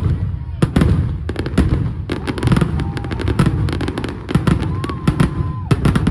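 Fireworks display: dense, rapid bangs and crackles of bursting shells, several a second, over a constant low rumble.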